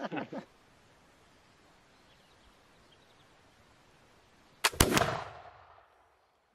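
Flintlock musket firing: two sharp cracks a fraction of a second apart, about four and a half seconds in, then the report dying away over about a second.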